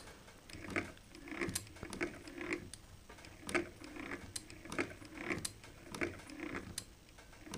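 Singer 111W153 walking-foot sewing machine cycling slowly: soft mechanical clicks and clunks of the needle bar, walking presser feet and feed dogs, nearly two a second. The material is not advancing, a feeding fault the owner puts down to the walking bar not coming forward enough.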